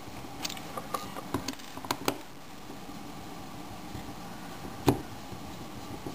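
Light, scattered clicks and taps as a small Phillips screwdriver works the screws on a Creative Zen Vision W's back case, with a sharper tap about five seconds in, over a steady faint hiss.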